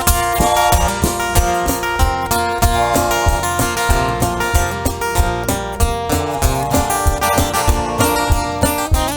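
Live country band playing an instrumental passage: strummed acoustic guitar over a steady beat, with other sustained instruments.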